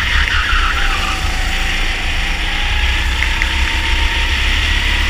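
Rental go-kart engine heard on board, its note climbing steadily as the kart accelerates out of a bend onto a straight, over a constant low rumble.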